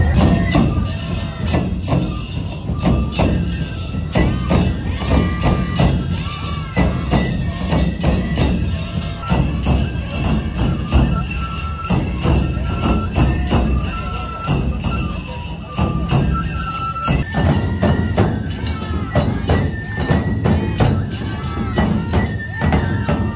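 Nebuta bayashi played live: large taiko drums beating under high bamboo-flute (fue) melody lines and rapid clashing of tebiragane hand cymbals. The recording cuts abruptly to another stretch of the same music about seventeen seconds in.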